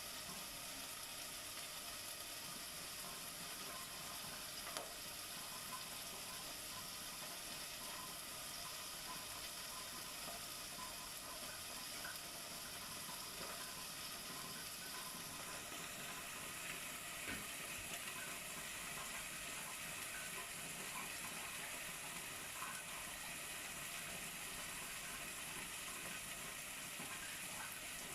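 Steady hiss of water running from a tap, with faint scattered small ticks and splashes.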